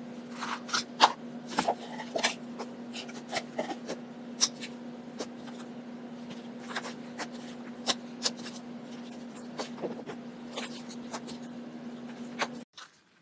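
Slime being squeezed and poked, giving irregular sharp clicks and pops over a steady low hum. Both stop abruptly near the end.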